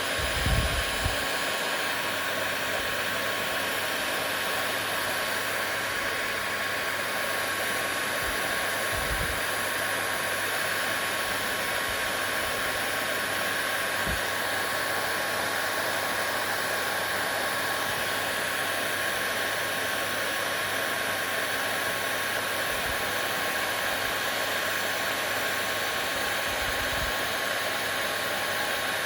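Hair dryer running steadily: an even rushing blow with a thin steady whine in it. A few soft low thumps come through, the strongest about half a second in.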